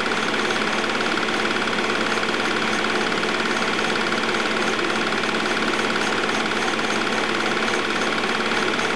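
Home-movie film projector running, very loud: a fast, even mechanical clatter from the film-advance mechanism over a steady whine, unchanging throughout.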